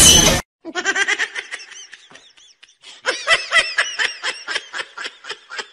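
A person laughing in quick, rapid bursts, with a short pause in the middle. Just at the start, a loud burst of music cuts off.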